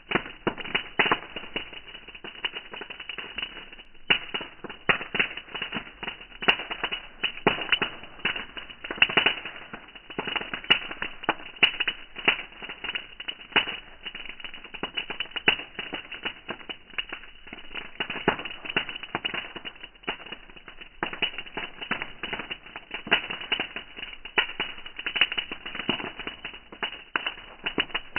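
Bonfire crackling, with a dense, irregular run of sharp snaps and pops from the burning wood.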